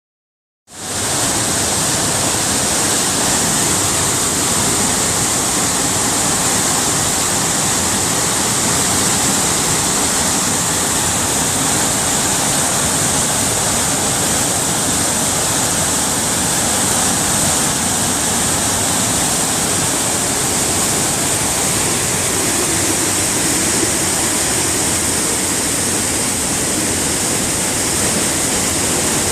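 River Clyde in spate after heavy rain, a steady loud rush of fast, high water. It comes in suddenly just under a second in and then holds even.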